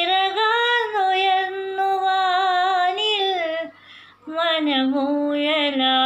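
A woman singing a Malayalam film song solo and unaccompanied, holding long notes with vibrato. She pauses briefly for breath about four seconds in.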